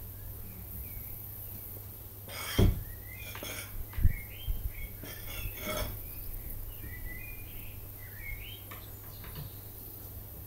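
Metal latch and bolt hardware on a wooden shed door clinking and knocking as it is undone and the door is swung open: a cluster of sharp clinks and thumps a few seconds in, the loudest two about a second and a half apart. Birds chirp on and off throughout.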